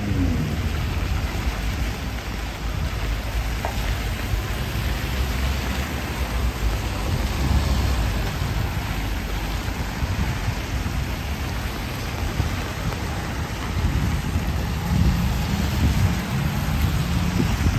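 Heavy rain falling steadily, with a low rumble rising and falling underneath.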